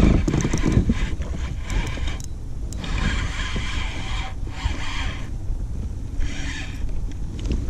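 Wind buffeting the microphone as a steady low rumble, broken by several bursts of high hiss that come and go, from the line and reel or the water as a fish is fought to the kayak.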